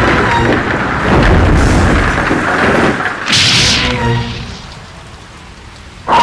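Monster-movie sound effect: deep rumbling booms, then a short hissing blast a little over three seconds in, followed by a last rumble that dies away.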